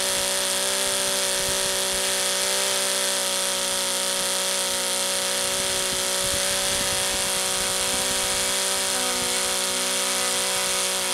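Pip model radial engine, a three-cylinder glow-plug engine, running steadily at high speed, about 8600 rpm, on new glow plugs, with an even pitch that does not change.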